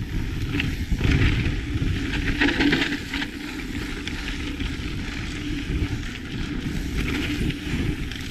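Lapierre Zesty mountain bike riding along a dirt trail: tyres rolling over the ground with uneven rumble and scattered rattles and knocks from the bike, with wind noise on the microphone.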